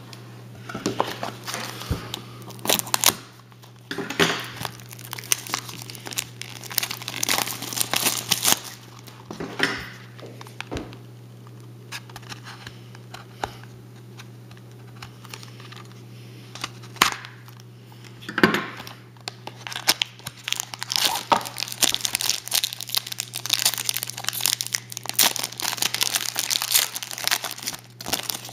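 Foil trading-card pack wrapper being crinkled and torn open by hand: irregular crackling bursts, sparser in the middle and denser near the end, over a steady low hum.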